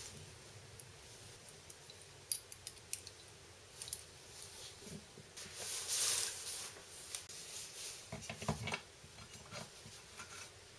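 Small metal parts clicking and clinking as a jaw coupler hub is handled and bolted up with screws and a hex key, then its plate is fitted to a small engine's flywheel. A brief rustle comes about six seconds in and a couple of low knocks around eight seconds.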